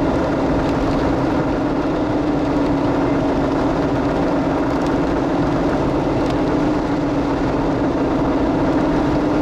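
Steady engine and road noise inside a moving car, with a constant low hum.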